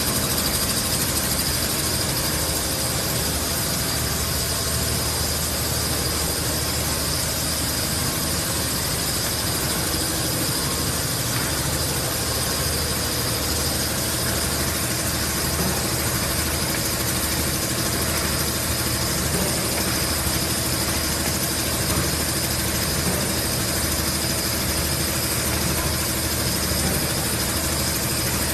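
Automatic piston filling and screw-capping machine for engine-oil bottles running continuously: a steady mechanical hum with a constant high whine over it.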